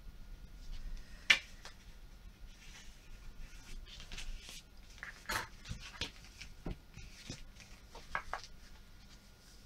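White card stock being creased along a metal ruler and then folded by hand: paper scraping and rustling with a few sharp taps and clicks, the loudest about a second in.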